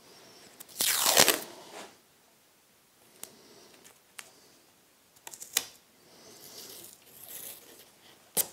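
Masking tape pulled off the roll with a loud rip about a second in, then a few short clicks and softer rustles as strips are torn and pressed onto the corners of a small glued wooden frame.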